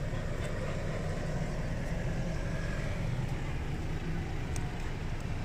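Steady low rumble of road traffic, with a few faint light clicks.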